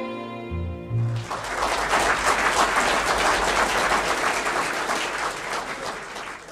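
An orchestra's final chord ends about a second in, and the audience breaks into applause that carries on steadily.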